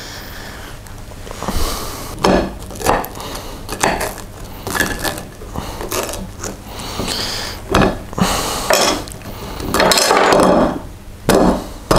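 Knife and fork scraping and clinking against a ceramic plate in irregular strokes while cutting through an oven-burnt pizza, with a longer rasping scrape about ten seconds in.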